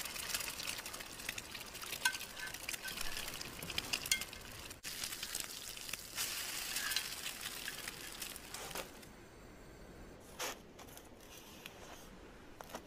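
Beaten egg frying in a small rectangular tamagoyaki pan, sizzling and crackling with many small pops while chopsticks stir it. About nine seconds in the sizzle stops, and a brief single sound follows a little later.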